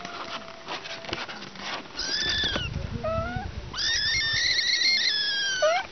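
Young kitten mewing: a short high-pitched cry about two seconds in, a brief rising squeak, then a long high-pitched cry held for about two seconds near the end.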